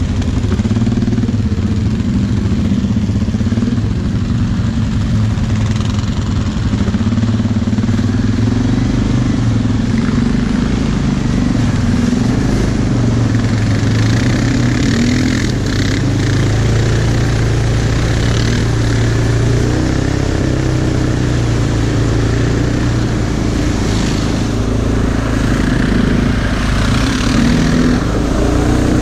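Suzuki KingQuad 700 ATV's single-cylinder engine running under way, its note rising and falling with the throttle, with mud and water splashing under the tyres through the puddles.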